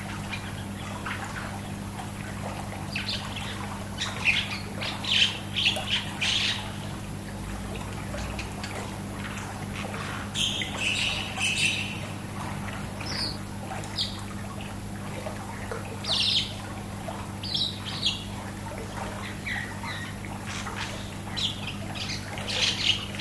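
Songbirds chirping and calling in short scattered bursts, with clusters of sharper squawk-like calls every few seconds. Underneath runs a steady low hum and faint pool water.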